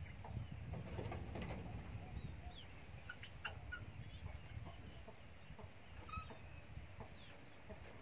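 Chickens clucking, with scattered short high chirps, over a low rumble that is strongest in the first second and a half.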